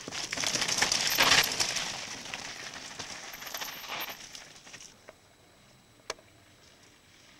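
Mountain bike passing close on a rocky trail: tyres crunching over loose stones with metallic rattling and clinking from the bike, loudest about a second in and fading away over the next few seconds. After that it is much quieter, with a single sharp click.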